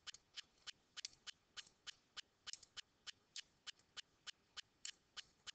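Faint, sharp clicks at a very even pace, about three a second.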